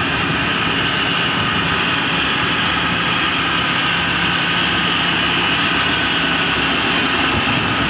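Kaset Pattana 'Ngoen Mee' small crawler rice combine harvester running steadily under load as it cuts and threshes flattened, waterlogged rice, a continuous even engine and machinery drone.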